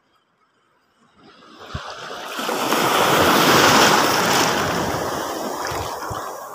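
A sea wave washing up around a wading angler: a rush of water that starts about a second in, swells to its loudest midway, then slowly fades.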